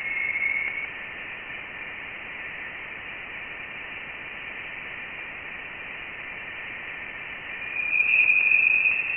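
Voyager 1 plasma-wave instrument data played as audio: a steady hiss carrying a faint whistling tone at the start, then a higher, louder tone about eight seconds in. The tones are the spacecraft's plasma-wave instrument picking up oscillations in the surrounding plasma, whose pitch tracks the plasma density.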